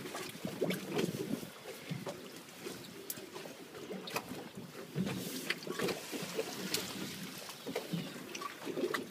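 Small waves slapping irregularly against a fibreglass boat hull, with wind buffeting the microphone and scattered light knocks.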